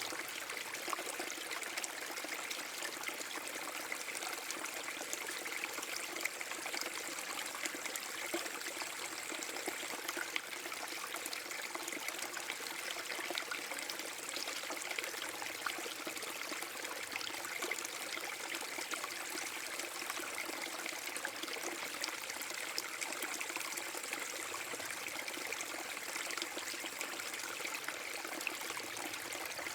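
Small waterfall on a forest brook, water splashing and trickling over rocks in a steady rush with many small splashes.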